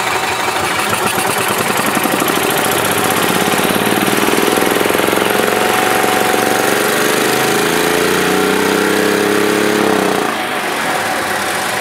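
Club Car DS golf cart's single-cylinder four-stroke gas engine running with the throttle opened. It revs up slowly over several seconds and holds high, then drops suddenly about ten seconds in. The engine does not bounce back to idle on its own, the sign of a failed governor.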